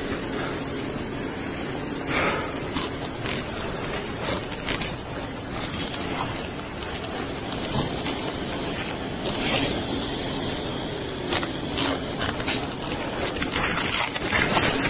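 Steady rushing noise with repeated rustles and scrapes of something rubbing close against a body-worn camera's microphone. The scraping grows busier near the end.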